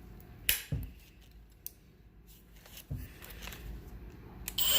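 A few sharp clicks and knocks from handling a Kobalt 24V brushless oscillating multi-tool as its blade-clamp lever is closed over a freshly fitted saw blade: two close together about half a second in, another about three seconds in.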